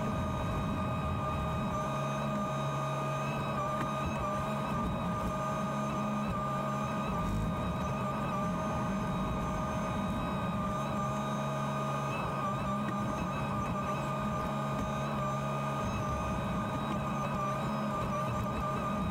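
JCB 48Z-1 mini excavator's diesel engine running steadily, heard from inside the cab, with a steady high whine over the low engine note. The low note swells and eases a little as the machine works.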